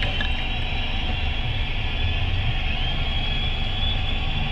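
Steady low rumble of a stationary car's engine idling, heard from inside the cabin through a dash camera. A thin high tone rises and then holds near the end.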